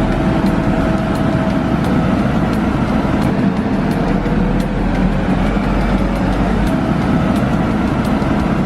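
A heavy motor vehicle's engine running steadily, with traffic noise.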